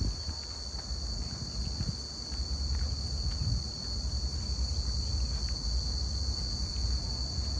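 A steady chorus of insects singing in an unbroken high-pitched whine, over an uneven low rumble.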